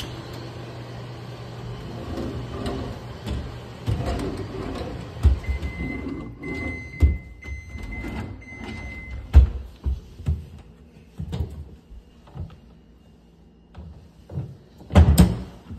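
Wooden kitchen drawers and cabinet doors being pulled open and pushed shut: a run of irregular knocks and slides, the loudest near the end. A thin, high, broken squeak lasts about three seconds in the middle.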